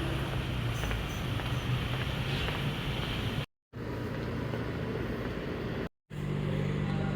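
A motor vehicle running: a steady low engine hum with road noise, in three short clips cut together.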